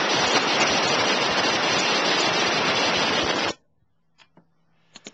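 Power tool, most likely an impact wrench, running a lug nut down onto a wheel stud: a steady, loud, hissing noise that cuts off abruptly about three and a half seconds in, followed by a few faint clicks.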